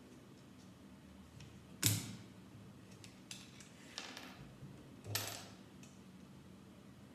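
Small plastic Lego bricks clicking and clattering as they are handled and pressed together: a handful of sharp clicks, the loudest about two seconds in, with lighter ticks between.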